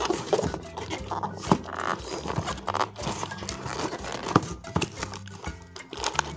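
Cardboard box being opened and handled: rustling, scraping and short knocks of cardboard, over background music.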